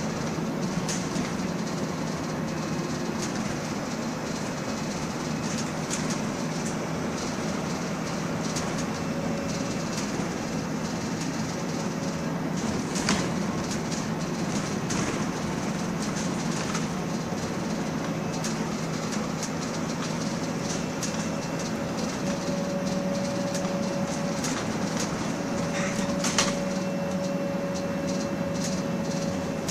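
Inside a MAN 18.240 single-deck bus on the move: a steady diesel engine and drivetrain drone with body and window rattles, and a couple of louder rattling knocks, about halfway and near the end. A faint whine joins in during the second half.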